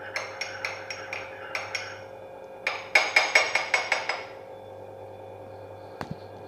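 A spoon stirring tea in a cup, clinking against its sides in quick runs of taps, then stopping a little past halfway; one faint click near the end.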